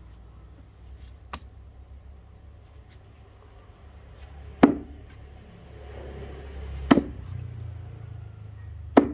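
Axe with a restored Underhill head chopping into wood: three sharp strikes about two seconds apart, with a fainter knock about a second in.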